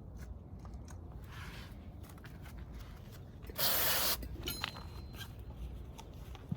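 Small clicks and scrapes of tools and metal parts being handled during motorcycle engine disassembly, with a loud half-second hiss about three and a half seconds in.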